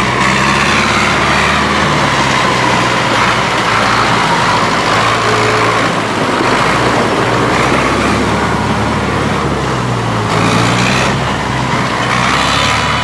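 Tractor engine running hard, its pitch rising and falling several times as the revs change.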